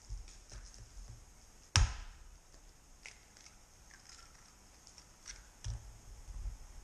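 Kitchen work sounds: one loud, sharp knock a little under two seconds in, followed by a few lighter clicks and taps.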